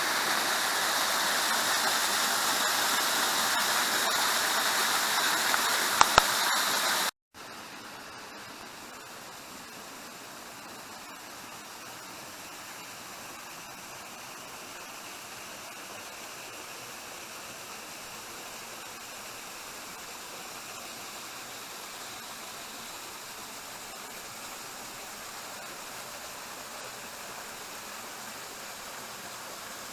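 Waterfall's steady rush of falling water, with two short clicks about six seconds in. The sound drops out at about seven seconds and comes back as a much fainter steady rush of water.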